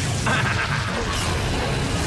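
Cartoon sound effects of an energy blast striking and exploding, a dense rushing crash that carries on without a break.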